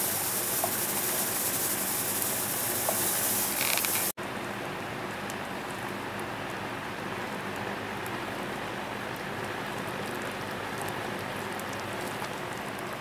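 Milky noodles simmering at a light boil in an enamel pot over a wood-fired tin-can rocket stove: a steady hiss with faint scattered crackling pops. A loud, bright hiss cuts off abruptly about four seconds in, leaving a quieter hiss.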